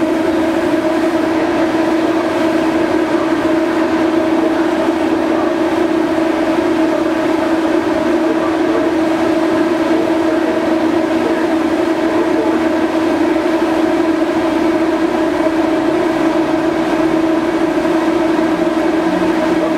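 Steady drone of the MV Salish Eagle's onboard machinery: a constant hum with one strong mid-pitched tone and fainter overtones above it.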